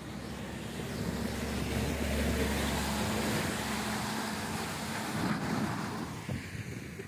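A car passing close by on a wet road, its engine and the hiss of its tyres swelling to a peak through the middle and then fading away near the end.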